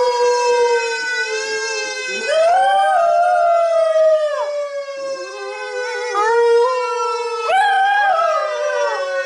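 A dog howling along with a fire truck siren, which is a long wail slowly falling in pitch. The dog's howls rise and fall, several in turn, the strongest starting about two seconds in and again near the end.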